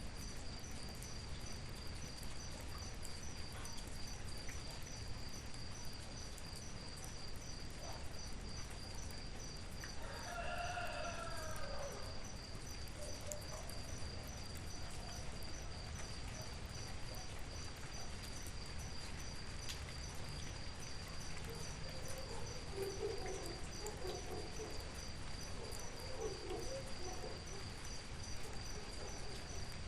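A rooster crows once, about ten seconds in, over the steady pulsing chirp of crickets and an even hiss of rain. Shorter, lower calls from fowl follow in the second half.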